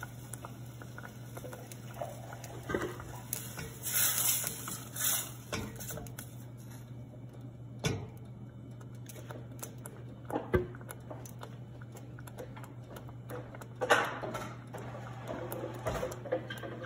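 Wooden spatula stirring a thick curry gravy in a stainless steel saucepan, with scattered knocks and scrapes against the pan, over a low steady hum.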